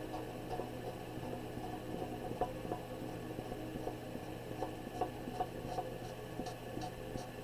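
Faint scratching of a colouring tool on paper, with small ticks scattered through, over a steady low electrical hum.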